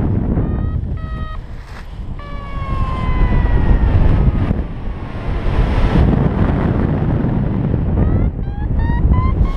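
Paragliding variometer beeping over heavy wind rush on the microphone. There is a long tone that slides slowly downward, then near the end a run of short beeps that climb in pitch, the vario's signal of rising air.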